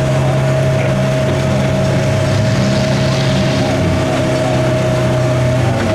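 Off-road buggy's engine held at high, steady revs as it climbs out of a muddy water pit, with the revs starting to drop right at the end.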